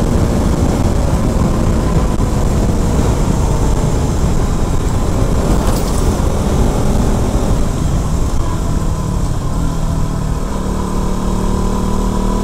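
KTM RC 200 motorcycle being ridden: its single-cylinder engine running steadily under a loud, constant rush of wind and road noise.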